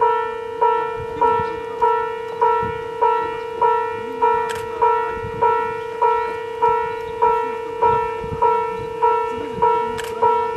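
Railway level-crossing warning bell ringing in an even, repeated clang, about one and a half to two strikes a second, signalling an approaching train.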